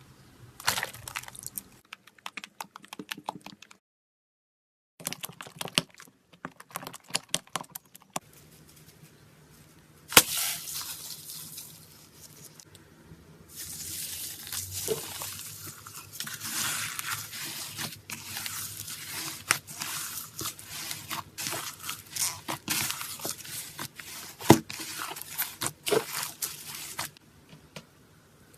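Slime being pressed and squeezed by hand, giving runs of sharp crackles and pops. A sharp crack comes about ten seconds in, then denser crackling in the second half. A brief silent gap partway through.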